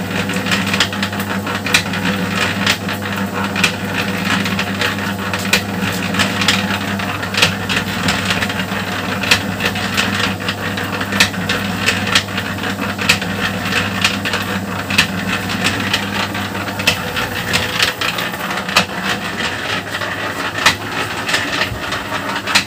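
Small electric drum concrete mixer running, its drum turning to mix a batch of dry ground feed: a steady motor hum with irregular clicks and knocks throughout.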